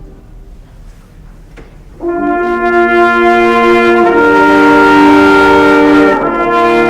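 Wind band playing a slow piece: after a hushed pause, a loud held brass chord enters about two seconds in, moves to a new sustained chord about two seconds later, and shifts again near the end.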